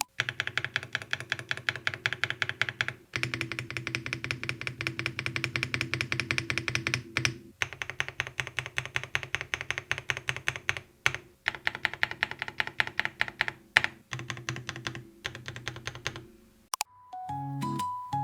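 Fast typing on a Monstar Gear Gats X500 Pro 100-key keyboard with round pebble-style keycaps: a dense run of key clacks with brief pauses, stopping about a second and a half before the end, with background music underneath.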